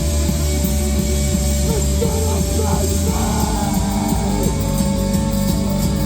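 Live rock band playing a song at full volume: guitars and drums, with what may be a voice gliding over them from about two seconds in.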